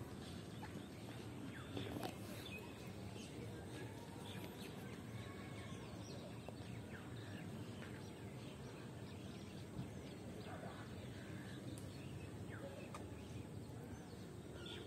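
Outdoor park ambience: a steady background noise with birds chirping on and off.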